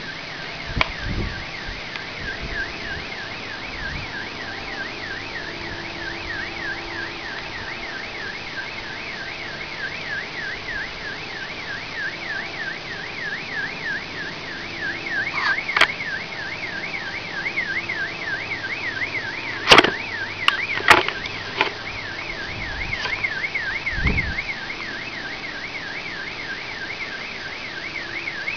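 Car alarm siren wailing in a fast, steady up-and-down sweep, about four sweeps a second, over a steady background noise, with a few sharp clicks past the middle.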